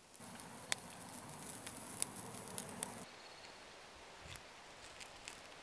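Faint crackling of a small wood fire in a tin-can stove, with a few sharp pops. About three seconds in it gives way to quieter outdoor background with a couple of soft wooden clicks from sticks being handled at the stove.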